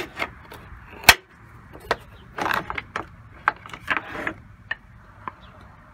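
Plastic clicks and rattles of a Toyota Sienna's under-hood fuse box cover being unlatched and lifted off. There is a sharp snap about a second in, then scattered lighter clicks and two short scraping rustles.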